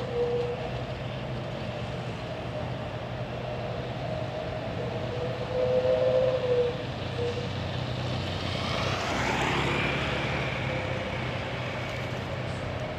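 Heavy truck diesel engines running on a steep mountain road, with a steady low hum and a whine that comes and goes. About nine seconds in, a vehicle passes close by, swelling and then fading.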